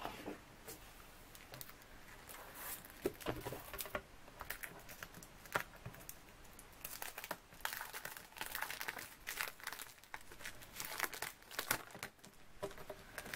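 Clear plastic wrapper of a scrapbook paper pack crinkling and crackling irregularly as the sheets are handled and slid out of it, busier in the second half.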